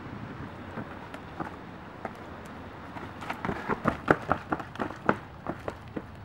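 Running footsteps on a dirt woodland trail littered with dead leaves and twigs: quick, irregular steps start about three seconds in, are loudest near the middle and fade as the runner moves away, over a steady outdoor hiss.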